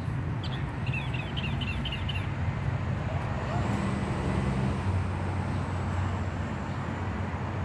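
Steady low rumble of distant road traffic, with a bird giving a quick run of high chirps about half a second in that lasts under two seconds.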